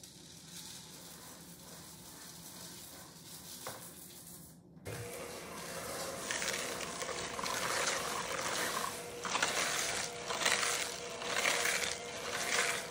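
Electric hand mixer with a wire whisk beater starting about five seconds in and running with a steady hum. The whisk churns thick ricotta filling and chocolate chips in a plastic bowl, with a swishing that swells a little more than once a second. Before it, only faint room tone.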